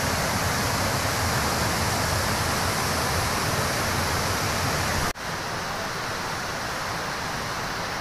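Steady rush of water from a small tiered waterfall cascade. About five seconds in there is a sudden break, and the rush goes on a little quieter.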